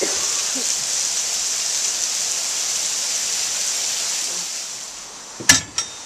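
Steady hiss of water falling and spilling at a wooden water wheel and flume, fading out about five seconds in. Then a single sharp knock and a click.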